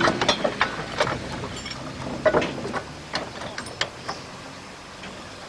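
Scattered clicks and knocks from the coupling gear between two narrow-gauge railway vehicles as it is worked by hand, getting quieter toward the end.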